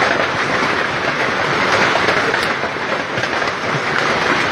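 Heavy hailstorm: a loud, steady clatter of hailstones and rain pelting down, with a few sharper single hits standing out.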